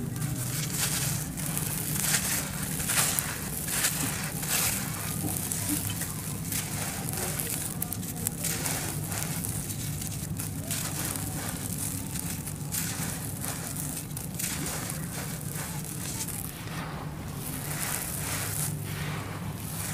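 Dry sand-cement blocks being broken and crushed by hand: a grainy crackling and crumbling, in many short irregular strokes, as the blocks give way and loose powdery grit shifts and sifts through the fingers. A steady low hum runs underneath.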